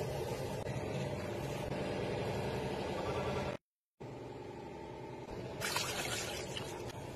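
Water poured from a glass jug into a saucepan of eggs, splashing in about three-quarters of the way through. Before it there is a steady low background sound, broken by a moment of dead silence just past halfway.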